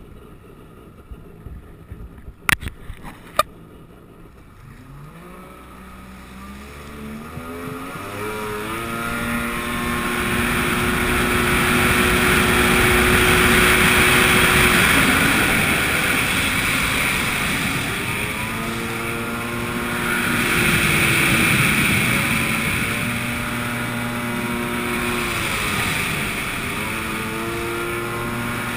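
Jet ski engine pulling away: quiet at first, with two sharp knocks a few seconds in, then the engine note climbs as it accelerates and rises and falls with the throttle, over the rush of water spray and wind.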